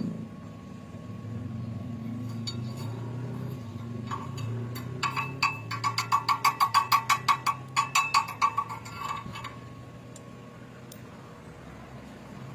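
Chipping hammer tapping slag off a fresh stick-weld bead on steel: a quick run of metallic clinks, about four a second, each ringing briefly, lasting some four seconds around the middle.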